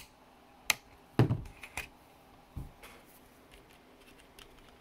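Small hand tool clicking and knocking against a circuit board while capacitors are pulled off: a few sharp clicks and one duller knock in the first three seconds, then quiet.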